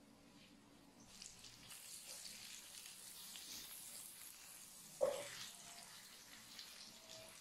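Eggs frying in oil in a nonstick pan, a faint sizzle that picks up about a second in. A spatula knocks once against the pan about five seconds in.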